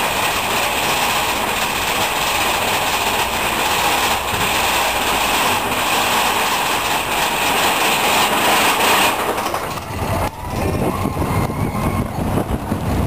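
Mine-train roller coaster running along its track, a loud steady rattle and rush of wheels and cars that rings in a rock tunnel. About ten seconds in the high rush drops away and a lower, uneven rumbling takes over as the train comes out into the open.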